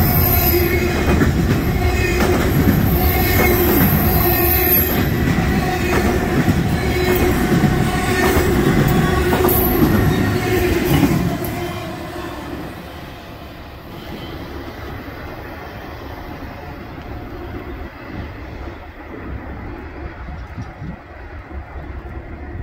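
Intermodal freight train's container and trailer cars rolling past close by, wheels squealing with high, steady tones. About eleven seconds in the last car goes by and the sound drops to a fainter rumble as the train moves away.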